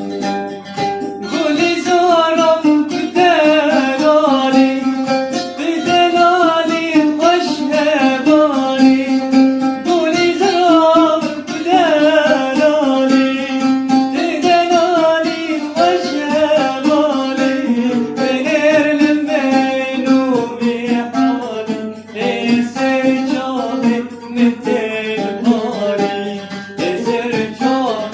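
A man singing a Kurdish song with a plucked string instrument accompanying him; the melody is continuous and ornamented.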